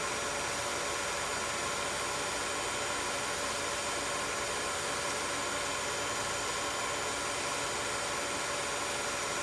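16mm film projector running: a steady mechanical hum with a hiss that holds unchanged throughout.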